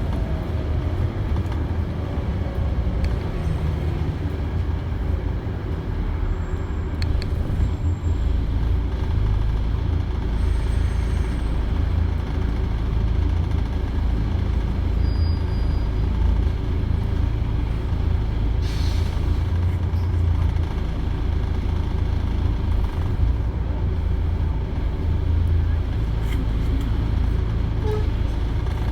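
Volvo B7TL double-decker bus's turbocharged diesel engine running steadily while the bus is under way, with a deep low rumble. A short hiss of air about two-thirds of the way through.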